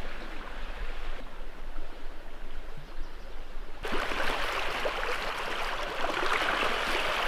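Steady wash of small lake waves on the shore, with a breeze. The sound changes abruptly twice, becoming louder and brighter about four seconds in.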